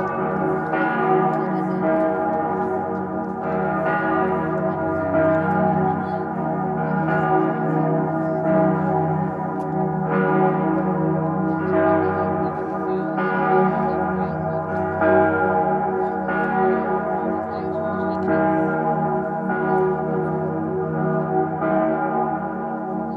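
Salzburg Cathedral's bells ringing in full peal: several large swinging bells striking in overlapping strokes, a new stroke about every second, over a continuous deep hum of ringing.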